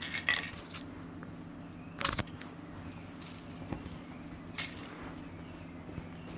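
Kittens scampering and playing with toys on a quilted bedspread: scattered short rustles and light knocks, grouped at the start, about two seconds in and near five seconds, over a steady low hum.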